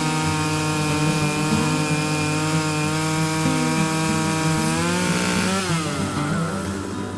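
Vintage Stihl 056 chainsaw running steadily, ripping a chestnut log in an Alaskan chainsaw mill. About five seconds in, its pitch rises, then falls away sharply as the engine winds down.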